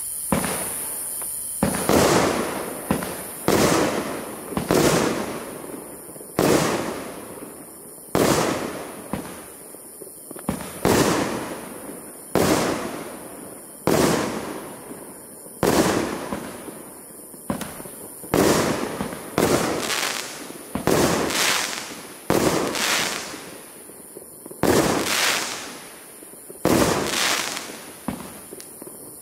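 A 30 mm-bore firework cake firing its shots one after another, a sharp bang about every one and a half seconds, each trailing off before the next.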